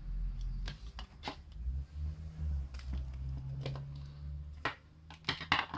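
Plastic casing parts of a small portable radio being handled and fitted together: irregular clicks and taps of hard plastic, with a cluster of louder clicks near the end and a low rumble underneath.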